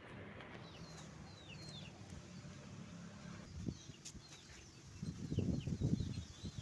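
Small birds chirping repeatedly, each call a short falling note. From about five seconds in, a louder low rustling rumble joins them.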